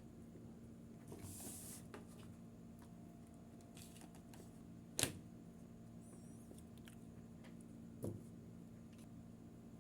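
Plastic toy pieces handled by hand: a soft rustle about a second in, then two sharp clicks, one near the middle and a fainter one about three seconds later.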